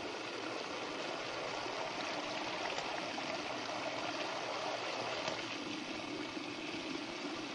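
Three thin water streams falling steadily into trash barrels, a continuous even splashing hiss.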